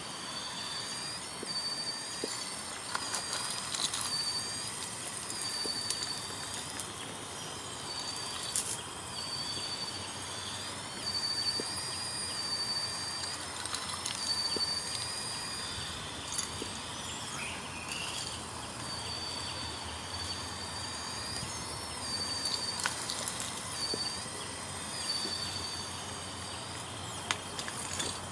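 Drive motors of a 1:16 RC Komatsu PW180 wheeled excavator whining steadily, the pitch briefly shifting every few seconds as the boom and bucket move, with scattered clicks of the bucket in gravel.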